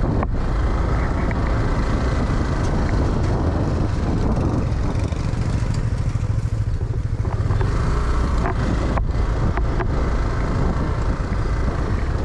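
Motor scooter's engine running steadily under a heavy low rumble as it rides a rough dirt track, with a few short knocks about three-quarters of the way through.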